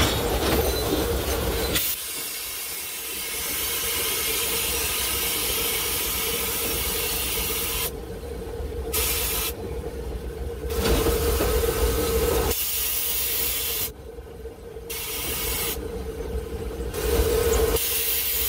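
Narrow-gauge steam locomotive heard from inside its cab while running: a steady hiss of steam over the low rumble of the running gear on the rails. From about halfway through, the hiss cuts out and comes back several times.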